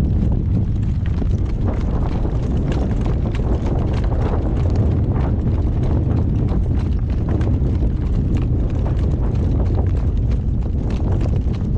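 Shod horse's hooves clip-clopping in an uneven run of sharp knocks, over a steady low rumble.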